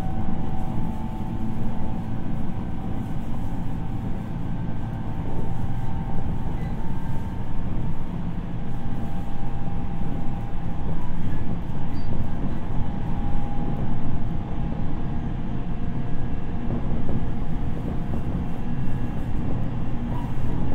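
Onboard running sound of a JR East 701 series electric train with renewed VVVF traction equipment, heard inside the motor car: a steady rumble of wheels on rail with faint, nearly level motor and inverter tones above it.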